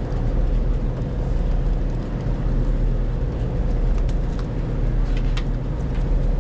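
Fishing boat's engine running steadily with a low drone, with a few sharp clicks or taps between about four and five and a half seconds in.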